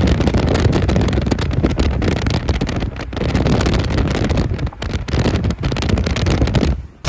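Wind buffeting the microphone of a moving car, a loud, rough rush heaviest in the low end that wavers with a few short dips and cuts off suddenly near the end.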